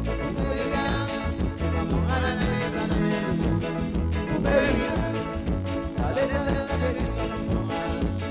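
Upbeat Creole sega music with a steady, even beat.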